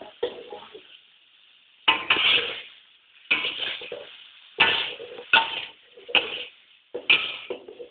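A metal spatula clanking and scraping against a frying pan while food is stirred and turned, about six sharp ringing strikes roughly a second apart, over faint sizzling of frying food.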